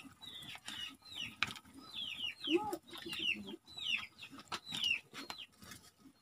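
Chicks peeping: many short, high chirps that fall in pitch, following one another quickly, with one lower cluck about two and a half seconds in. Scattered light clicks from the wood fire crackling under the pan.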